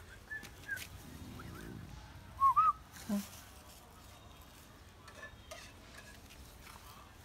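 Whistled chirps: two faint ones in the first second, then two loud, short, arching chirps about two and a half seconds in.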